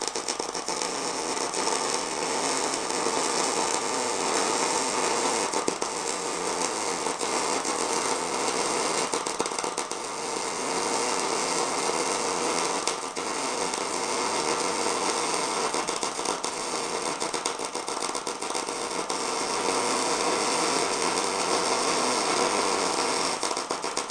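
MIG welding arc on 1/8-inch mild steel, the Canaweld Multiprocess 201 SLM feeding 0.035-inch wire under mixed shielding gas at its synergic settings (284 in/min wire speed, 19 V). It is a steady, dense crackle of rapid pops that goes on without a break.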